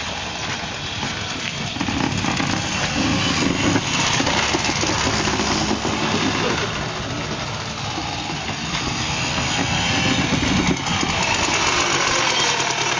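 Plastic wheelie bins rattling and rumbling as they roll fast over pavement.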